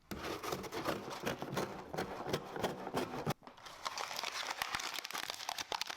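Packaging being handled: irregular crinkling and crackling, with a short lull about three seconds in.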